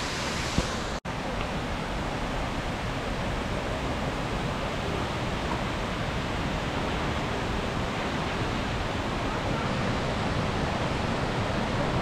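Steady rushing of Multnomah Falls, a tall plunging waterfall, heard as an even wash of noise. The sound drops out for an instant about a second in.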